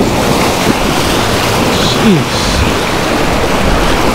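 Waves surging over the rocks of a granite jetty, a loud continuous rush and wash of surf.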